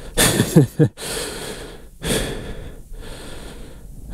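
A man breathing hard and gasping for air, worn out from straining to lift a fallen, heavily loaded motorcycle. There are two loud heavy breaths, the first ending in a short voiced grunt, and a fainter one after them.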